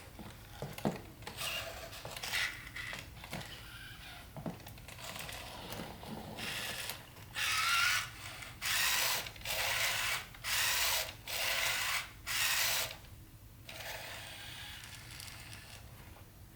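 Sony Aibo ERS-7 robot dog's joint servo motors whirring and grinding as it moves through its balance check. It starts with quieter shifting noises, then gives about six loud whirs in a row, each under a second long. The joints are rather noisy, a sign of wear the owner means to look at.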